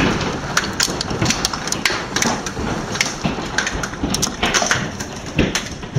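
Large hailstones, golf-ball size and bigger, falling in a heavy hailstorm, heard from inside a house: a steady rushing of falling hail with frequent irregular sharp knocks of stones striking the house.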